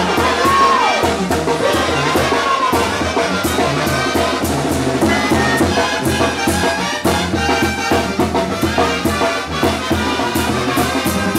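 Mexican banda music: a brass section of trumpets and trombones with tuba and drums playing a steady beat.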